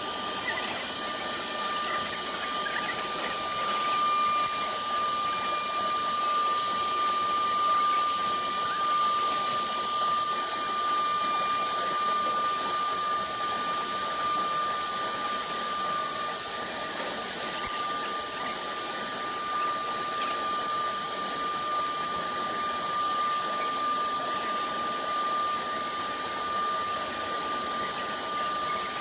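CNC router spindle running steadily while its bit engraves lines into an MDF sheet: a constant high-pitched whine over a steady hiss.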